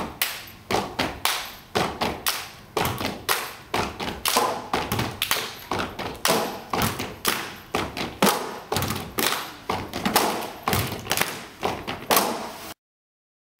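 Several basketballs dribbled on a wooden floor, bouncing in a steady rhythm of about three bounces a second. The bouncing cuts off abruptly about a second before the end.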